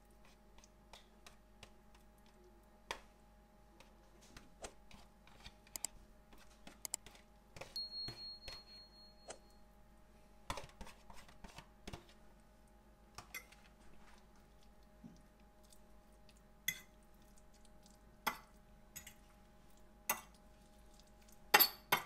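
Metal fork scraping curry out of a plastic microwave tray and stirring it into rice on a ceramic plate: scattered light clinks and scrapes of metal on china, the sharpest clinks coming in the last few seconds as the curry is mixed through the rice. A faint steady hum lies underneath.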